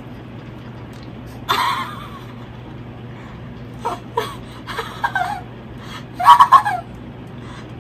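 Two people giggling and laughing through mouths stuffed with marshmallows, in short separate bursts, the loudest about six seconds in, over a faint steady hum.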